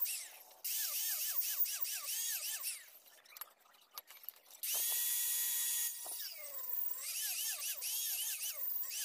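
Handheld angle grinder with an abrasive disc working the steel blade of a meat cleaver. Its high whine wavers up and down in pitch several times a second as it is pressed and rocked on the metal. It drops away about three seconds in, then comes back a second and a half later as a steady free-running whine before the pitch sags and it bears on the blade again.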